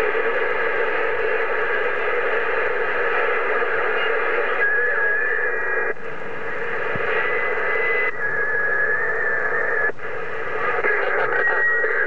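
President HR2510 radio receiving loud static and hiss on 27.025 MHz, the noise shifting every couple of seconds. A thin wavering whistle comes and goes over it, about halfway through and again near the end.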